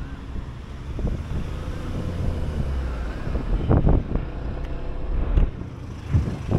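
Wind rumbling on the microphone over the noise of road traffic, with a few stronger gusts.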